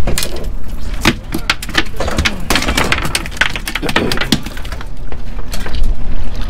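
A flounder flopping on a boat's deck: a quick, irregular run of sharp slaps and knocks.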